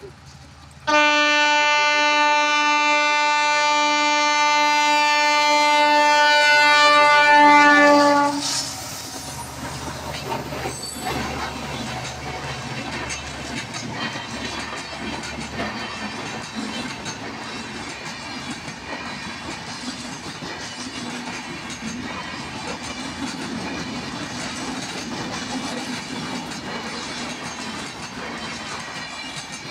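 Locomotive horn sounding one long blast of about seven seconds, its pitch dipping slightly as the locomotive passes. Then the express train's LHB passenger coaches roll by with a steady clatter of wheels over the track.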